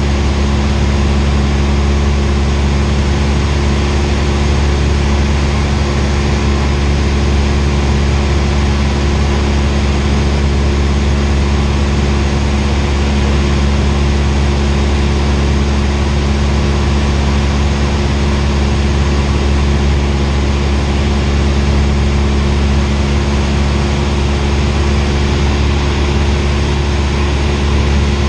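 Cessna 172R's four-cylinder Lycoming engine and propeller droning steadily in cruise flight, heard inside the cabin as a deep, even hum.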